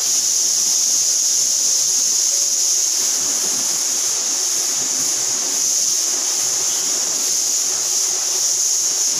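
A loud, steady hiss, strongest high up, that starts abruptly and holds at an even level with no rhythm.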